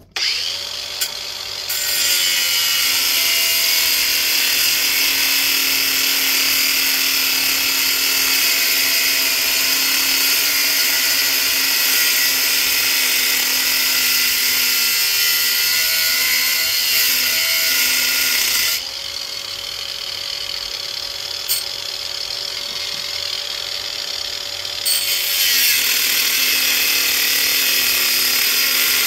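Power tool with a cutoff wheel cutting aluminum plate: the wheel spins up, then grinds loudly and steadily through the metal. For several seconds after the middle it runs free at a steady pitch, off the metal, then bites in and cuts again.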